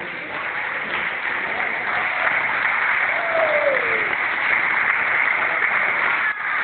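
Audience applauding, the clapping swelling over the first two seconds and then holding steady, with a short falling call from someone in the crowd a little past halfway.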